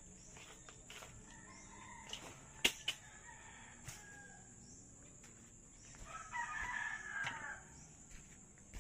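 A rooster crows once, about six seconds in, over a steady high-pitched insect drone. A sharp knock stands out a few seconds earlier.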